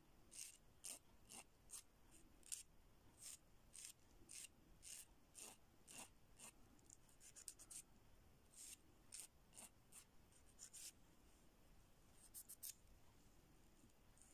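Faint short strokes of a hand nail file rasping across the tips of fingernails, about two a second, with a brief pause about eleven seconds in.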